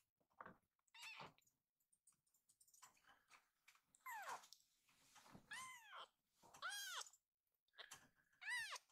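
A baby kitten mewing: a faint short mew about a second in, then four high, thin mews spaced a second or so apart, each rising and then falling in pitch.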